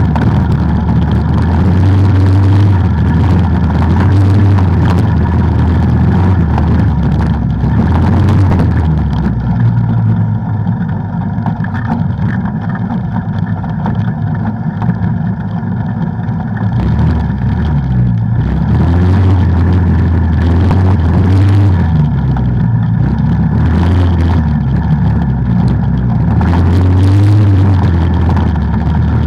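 ATV engine running under way, its note rising and falling with the throttle. It eases off for several seconds in the middle, then picks up again.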